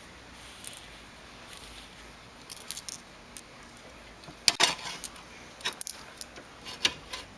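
Short, scattered metallic clinks of loose bolts, washers and nuts being handled against a steel seat track and adapter plate, the loudest cluster about four and a half seconds in.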